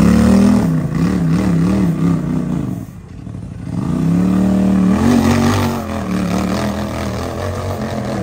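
Side-by-side UTV engine revving, its pitch wavering up and down. It drops away briefly about three seconds in, then climbs back up and holds steadier.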